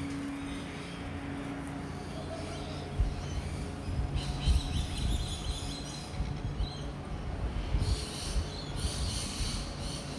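Sulphur-crested cockatoo biting and tearing at a cigarette packet, with crisp crinkling bursts about four seconds in and again near the end. Under it runs a low wind rumble with a few thumps.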